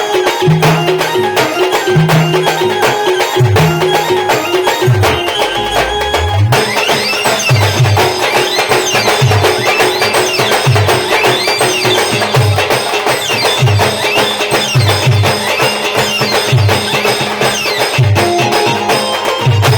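A live village band playing folk-style music with a steady drum beat under a melody; about six and a half seconds in, the sound grows fuller and brighter.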